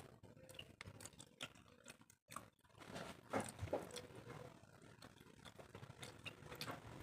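Soft, close-miked eating sounds: scattered mouth clicks and chewing, busier about three to four seconds in.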